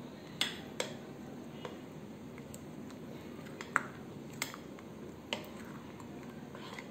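Metal spoon stirring thick cake batter in a glass bowl: soft wet squishing, with a few sharp clinks of the spoon against the glass.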